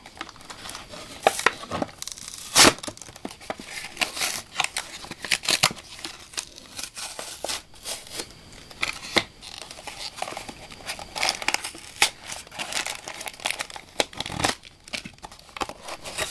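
Plastic blister packaging and cardboard being torn open and crinkled by hand: an irregular run of crackles and rips, with a sharp, loud snap about two and a half seconds in and another near the end.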